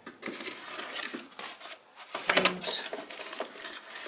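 Crinkling and rustling of a small cardboard box and its paper packing being handled and torn open by hand, with a few light ticks, loudest about two seconds in.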